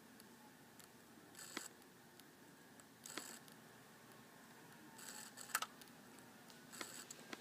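Failing MacBook Pro hard drive clicking and tapping faintly: a handful of sharp clicks and short rattling bursts at irregular intervals a second or two apart, the read-write head struggling to read data. This 'click of death' is the sign of a drive that is failing.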